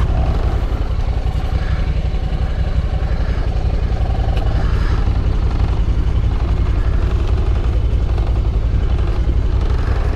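UTV engine idling steadily, a fast even low pulsing.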